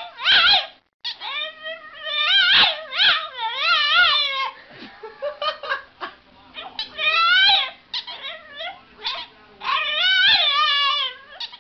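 French bulldog howling in a run of long, high-pitched, wavering yowls, with short breaks between them.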